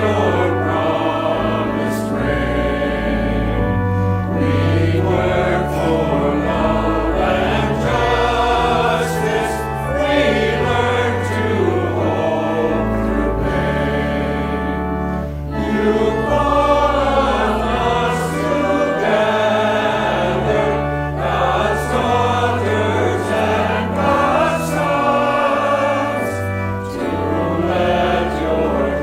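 A choir singing a hymn over instrumental accompaniment whose low notes are held steady, with a brief break about halfway through.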